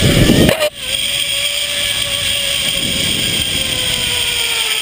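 Zipline trolley pulleys running along the steel cable, a steady whine that slowly drops in pitch as the rider slows toward the landing platform. A rush of wind noise on the microphone in the first half-second.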